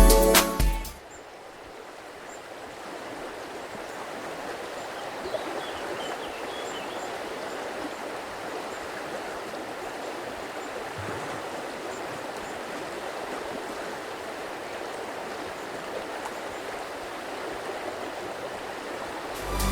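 River water flowing steadily in an even rush with no rhythm.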